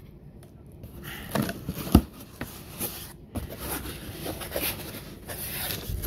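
Cardboard shipping box being opened by hand: flaps and packing tape rustling and scraping, with a sharp knock against the box about two seconds in.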